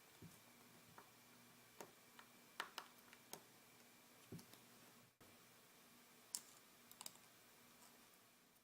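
Faint, scattered clicks and taps of small tools and phone parts during disassembly, about ten at irregular intervals, over near-silent room tone.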